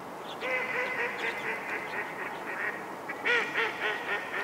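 Logo-sting sound effects: a dense run of short, arching pitched chirps over a hiss, starting about half a second in and busiest around three seconds in.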